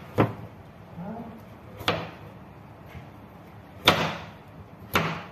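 Kitchen knife chopping squash on a cutting board: four sharp knocks of the blade striking the board, one to two seconds apart, the loudest about four seconds in.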